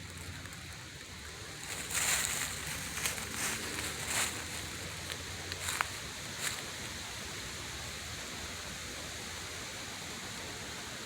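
Steady outdoor background hiss, with a run of short rustling, crunching noises about two to six seconds in, then only the hiss again.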